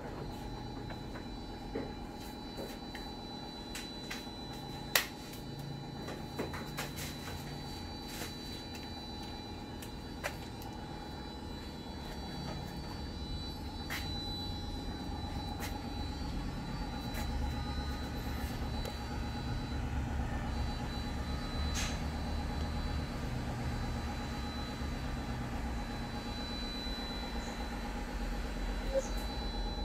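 Scattered light knocks and clicks as a speaker driver is handled and set into a plywood subwoofer cabinet, over a steady background hum. A low rumble builds from about halfway through.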